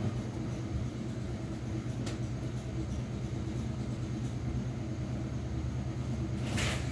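Steady low hum, with a single sharp click about two seconds in and a brief hiss near the end.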